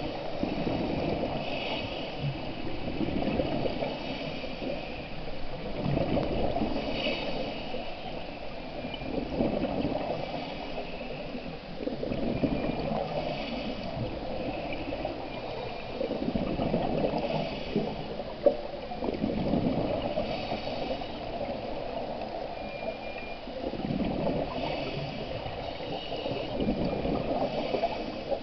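Scuba regulator breathing heard underwater through a camera housing: a hiss on each inhalation alternating with bubbling, gurgling exhalations, a breath every four to six seconds. A single sharp click partway through.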